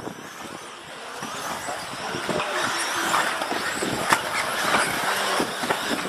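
Radio-controlled model racing cars running around the track, getting louder over the first couple of seconds, with scattered clicks and a sharp click about four seconds in.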